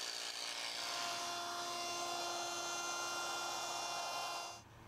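An electric jigsaw cutting a circle from a wooden board, then a Festool OF 1010 router running steadily as it shapes the circle's edge. The tool noise stops abruptly near the end.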